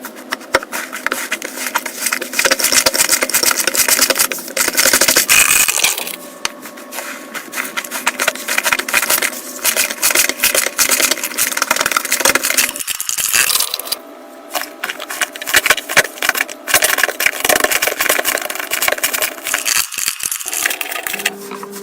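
Slime being squeezed and poked by hand, making dense crackling clicks and pops. The sound changes character with a cut a few times.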